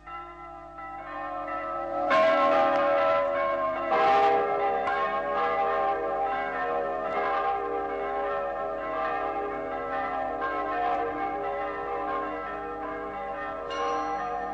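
Church bells ringing, several bells struck one after another with their tones ringing on and overlapping. Stronger strokes come in about two and four seconds in.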